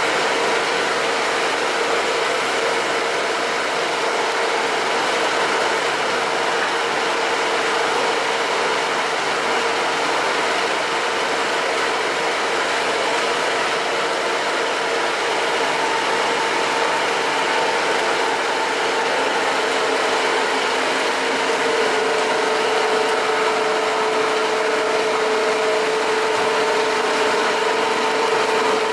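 Heavy-duty emery-stone wet grinder with a 2 HP motor running steadily: an even grinding noise with a constant whine.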